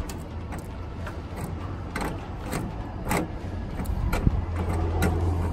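Light metallic clicks and taps, a handful spread across a few seconds, as a fitting on a vending machine's coin-slot panel is unscrewed by hand, over a steady low hum.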